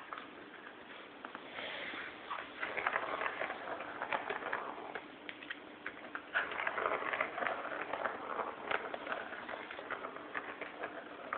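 Young kittens scampering and scuffling, their paws and claws making irregular pattering clicks and scratches, in two busy spells. A faint steady hum runs underneath.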